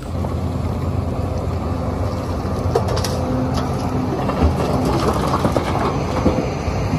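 Sumitomo crawler excavator's diesel engine running steadily under load as it digs and swings, with a few faint knocks.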